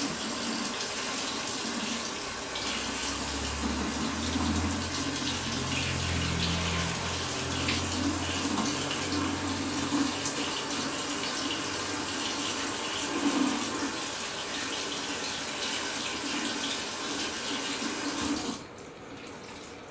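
Kitchen faucet running steadily, its water splashing over a split spiny lobster tail being rinsed in the sink. The tap shuts off near the end.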